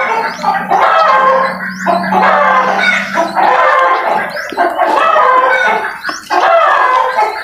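Chickens clucking and calling again and again, with a low steady drone through the first half.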